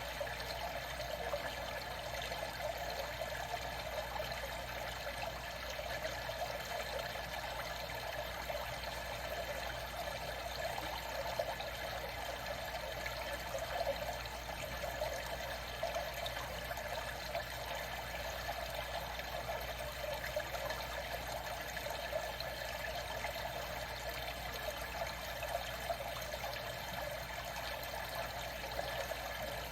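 Steady trickling, gently moving water with no break or change.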